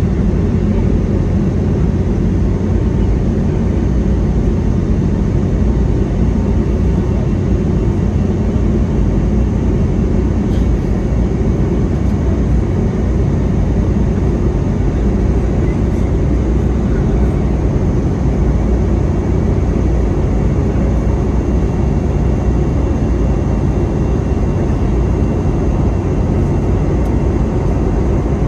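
Cabin noise of an Airbus A320neo climbing out after takeoff, heard from a seat beside the wing: its Pratt & Whitney PW1100G geared turbofans running at climb power with rushing airflow. A loud, even rumble with a faint steady whine over it.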